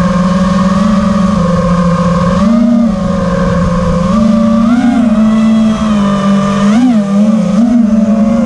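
FPV freestyle quadcopter's brushless motors whining steadily, recorded close up by the onboard camera. The pitch rises and falls briefly several times as the throttle is punched.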